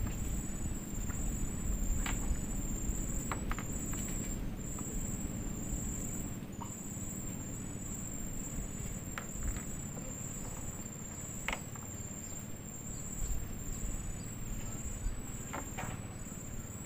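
Insects chirring in a steady high-pitched trill broken into uneven pulses, over a low rumble, with a few soft clicks scattered through.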